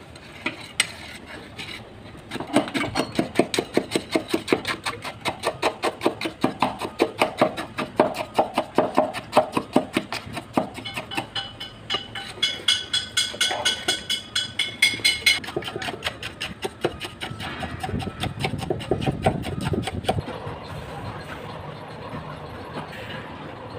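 A steel tamping rod is driven again and again into fresh concrete in a steel cube mould, compacting it for a concrete cube test. The strokes come at about three a second and stop about two-thirds of the way through.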